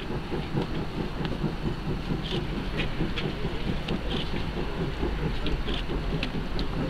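Steady rumble of the Class 86 steam tank locomotive 86 1333 and its train crossing a steel trestle viaduct, with a few short sharp clicks on top.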